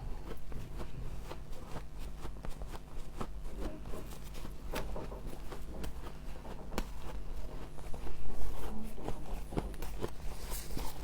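Crisp crunching of frost, a dense run of small crunches with a louder cluster about two-thirds of the way in, over a steady low hum.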